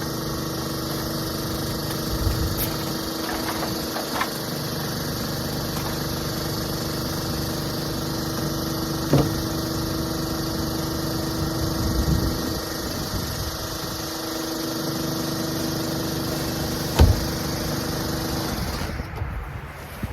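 A machine running steadily with a constant hum that cuts off near the end, with a few sharp knocks or clicks along the way, the loudest about 17 s in.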